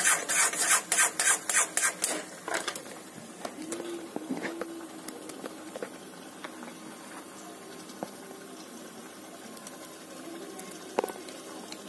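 Steel spoon scraping and slapping through thick sooji halwa in a black kadai, about four quick stirring strokes a second, stopping about two seconds in. Then much quieter, with scattered faint clicks of a small knife slicing almonds over a steel bowl, and one sharper click near the end.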